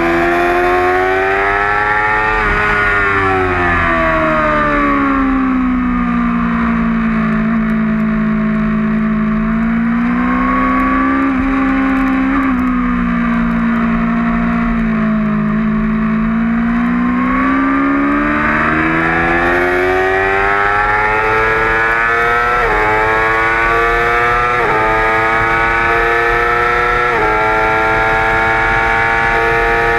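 2008 Yamaha R6's inline-four engine at racing speed, heard from on the bike over wind rush. The revs drop going into a long corner, hold fairly steady through it, then climb on the exit with three quick upshifts in the last several seconds.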